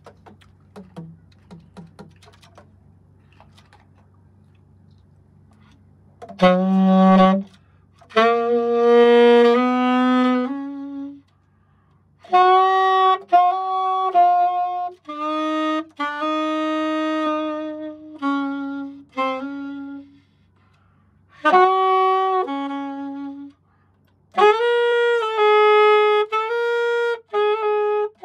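A brand-new Yamaha YAS-280 alto saxophone playing a slow melody of held notes in short phrases, with brief breaks between them. The player finds the new horn still heavy to blow. A few faint clicks come before the first note, about six seconds in.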